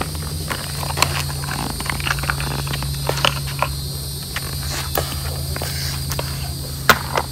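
Footsteps on a paved path: scattered short clicks over a steady low hum, with one sharper click near the end.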